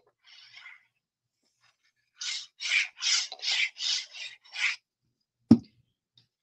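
Tip of a liquid-glue bottle scraped across cardstock in six quick scratchy strokes, laying glue on the back of a paper panel. A single sharp thump follows near the end.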